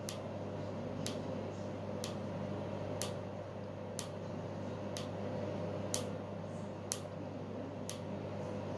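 Tattoo-removal laser firing pulses at eyebrow tattoo ink, a sharp snap about once a second, over the steady hum of the laser unit.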